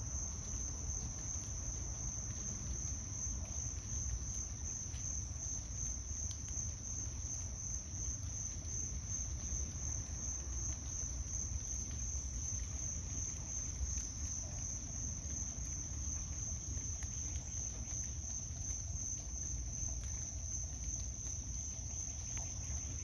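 Evening insect chorus: a steady, high-pitched shrill trill that runs on without a break, over a low rumble.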